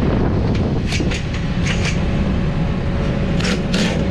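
Rooftop air-conditioning unit running with a steady low rumble, with a few short hissing, scratchy noises over it.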